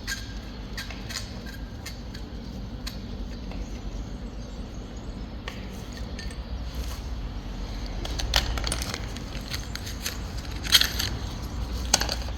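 Light metallic clicks and clinks of spark plugs and a plug socket being handled and fitted into the engine's plug holes, with a few sharper clicks in the second half. A steady low hum runs underneath.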